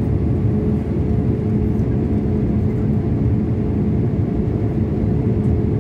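Steady cabin drone of a Boeing 787 airliner during descent: engine and airflow noise heard from a window seat, with a steady hum running through it.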